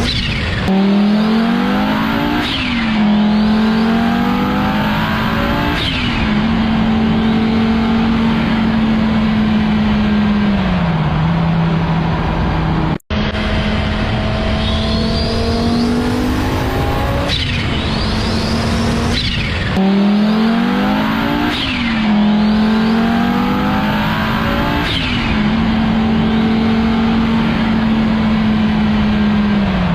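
Audi Sport quattro Group B rally car's turbocharged five-cylinder engine accelerating hard through the gears: the pitch climbs and drops back with each upshift, then holds steady at speed before falling off. The sound cuts out for an instant about 13 seconds in.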